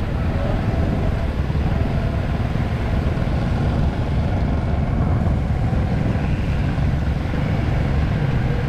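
Steady road noise from a vehicle on the move along a wet road: a low engine drone and wind rumble on the microphone, with tyre hiss over water.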